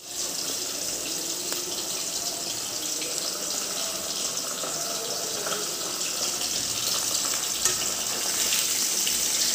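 Turmeric-marinated fish frying in hot oil in a karahi: a steady sizzle with faint crackles, growing slightly louder toward the end.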